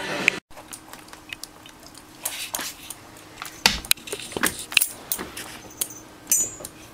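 Scattered light clicks and clinks, irregular and sharp, over a faint steady hum.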